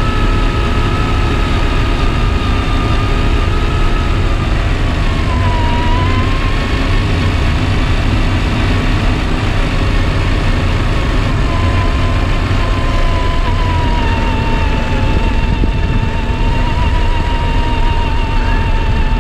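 RC scale truck running, its electric motor and gears giving a steady whine that drifts slowly lower in pitch, over a constant low noise.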